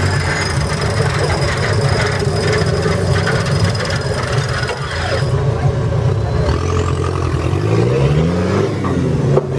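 Off-road trial 4x4's engine labouring at low revs, rising in a short rev about eight seconds in and dropping back.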